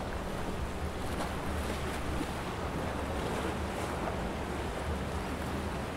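Calm sea water washing and lapping against shoreline rocks in a steady, even wash, with a low steady rumble underneath.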